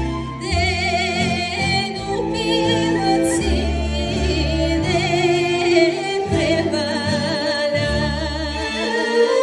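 Bulgarian folk song sung by a female soloist in the ornamented Bulgarian folk style, her voice wavering and trilling on held notes, over a folk orchestra of strings and plucked instruments with a pulsing bass line.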